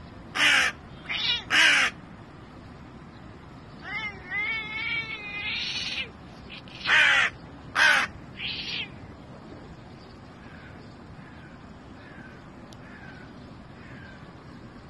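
Hooded crow cawing: three harsh caws, then a run of wavering, warbling calls, then three more caws. Faint short chirps repeat in the last few seconds.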